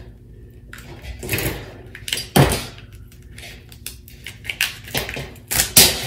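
Hands working a car engine wiring harness on a metal workbench: crackling rustles as the plastic sheathing and electrical tape are pulled back and the wires are handled. There is a knock about two and a half seconds in and a louder rustle near the end.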